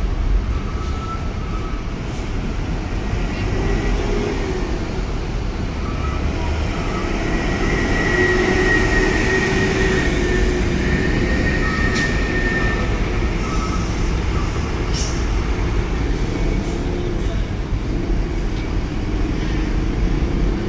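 Diesel engines of trucks and buses running and moving past at close range, a steady heavy rumble. Short beeps sound in pairs every few seconds.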